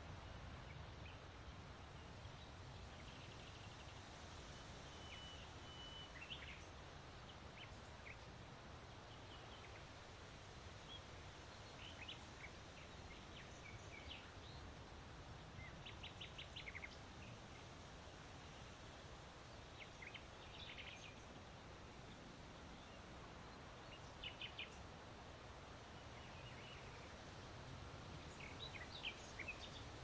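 Faint, scattered chirps and short calls of small birds, brief high notes every few seconds with a couple of quick rattling runs, over a steady low outdoor rumble.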